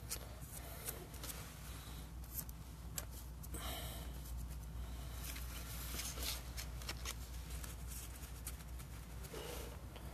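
Baseball cards being handled and flipped through: light scattered rustles and clicks, with a longer rustle about three and a half seconds in, over a steady low hum.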